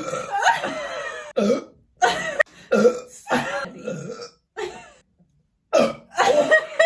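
A woman burping loudly, over and over: one long burp in the first second or so, then a run of short burps, a brief pause, and more burps near the end.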